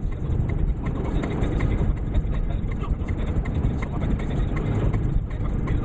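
Lexus IS cabin noise while driving on a packed-snow road: a steady low rumble of tyres and engine, with scattered faint ticks over it.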